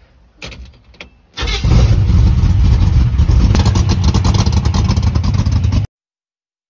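The Chevy 350 small-block V8 of a 1969 Chevy C10, with a solid roller cam, long-tube headers and small bullet mufflers, cranks briefly, then catches about a second and a half in and runs loud. The sound stops abruptly about six seconds in.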